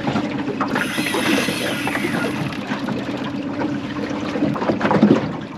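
Outboard motor running steadily on a small aluminium boat, with water and wind noise. A brief falling whine about a second in.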